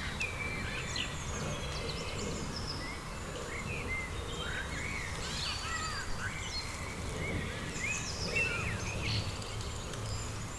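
Many short bird chirps and gliding calls from several birds, over a steady low rumble.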